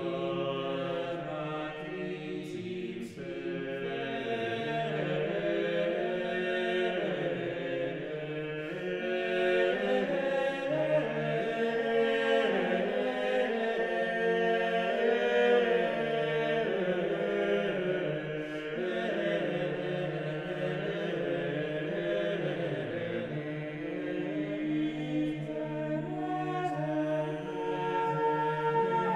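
Slow choral chant: voices sing long, held notes that move slowly from pitch to pitch.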